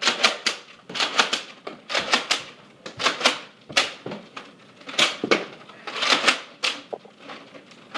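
Irregular run of sharp clicks and knocks, often in pairs, two to four a second.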